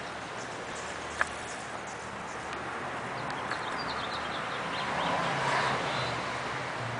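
Steady background noise with one sharp click about a second in, faint high chirps in the middle, and a swell of hiss a little past the middle.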